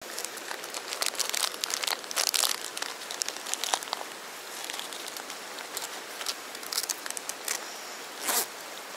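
Plastic crinkling and rustling as a soft-plastic bait packet is pulled from a tackle bag and handled in rain gear. A dense run of crackles comes in the first few seconds, sparser ones follow, and a louder rustle comes near the end, all over a steady hiss of rain.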